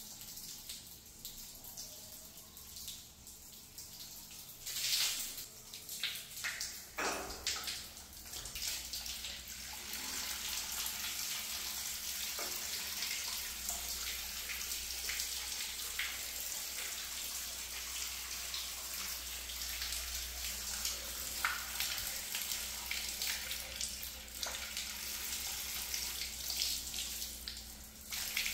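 Water running from a bathroom wall pipe outlet, softer at first, with a few knocks and splashes about five to seven seconds in. From about ten seconds on it becomes a steady, strong hiss of water spraying from the tap. This is the full flow back after the rust blockage in the old galvanised iron pipe was cleared with acid.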